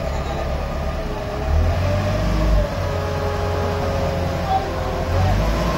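Dump truck's diesel engine running under load as its hydraulics raise the tipper bed, a steady whine over the low engine rumble. The engine note swells for about a second, starting a second and a half in.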